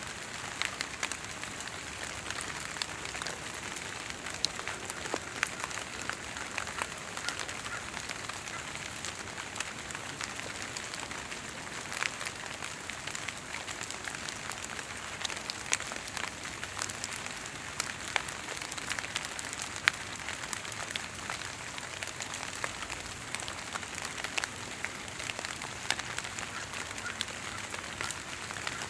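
Fog drip: water droplets that gathered from thick fog on the leaves and needles of tall trees fall onto the foliage below, giving many scattered, irregular drip ticks over a steady hiss. It is not rain.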